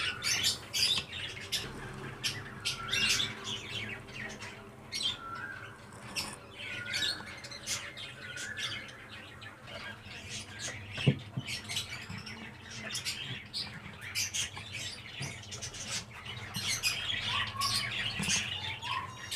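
Many small caged birds chirping and squawking on and off, with a single knock about eleven seconds in as the wooden lid is set back onto the beehive box.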